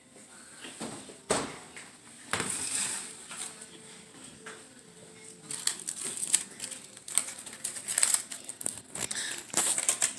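Two sharp knocks, then the rattling crinkle of aluminium foil packets being handled and opened, growing busier over the last few seconds.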